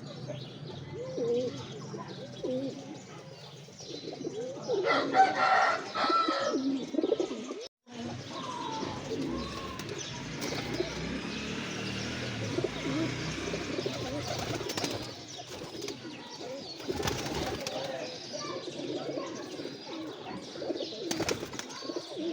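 Domestic pigeons cooing, many short low calls overlapping, with a louder flurry of noise about five to seven seconds in.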